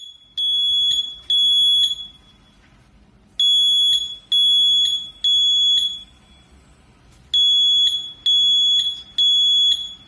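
Mini photoelectric smoke alarm sounding its piercing, high-pitched beep in groups of three, each group followed by a short pause, repeating: the alarm set off by cigarette smoke drawn into its chamber.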